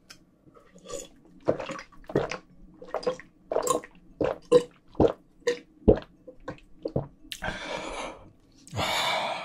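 A person gulping water from a glass, close to the mic, in a run of swallows about two a second. Near the end come two long breathy exhales through an open mouth, typical of cooling the mouth after spicy food.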